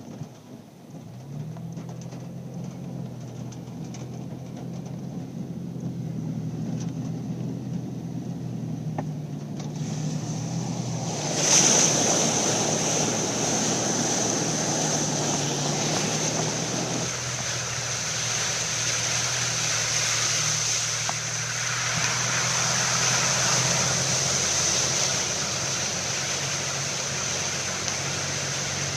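An FJ's engine running under load as it drives into flood water. About a third of the way in, a loud rushing and splashing of water sets in and continues over the engine.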